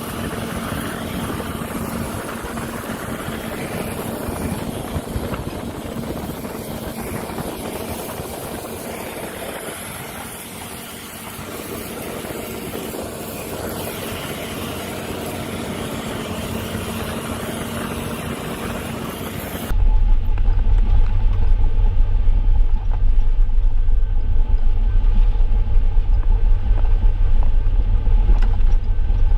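Heavy farm machinery engine running steadily with a lot of hiss. Near the end it cuts suddenly to a louder, deep low rumble.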